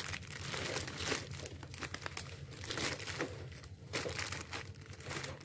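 Plastic wrappers of wafer-roll snacks crinkling as a hand sorts and shifts a pile of them, an irregular run of crackles over a steady low hum.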